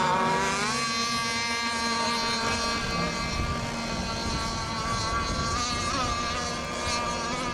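Radio-controlled racing boats running on the water, a steady high-pitched motor whine. The pitch dips briefly about half a second in and wavers near the end.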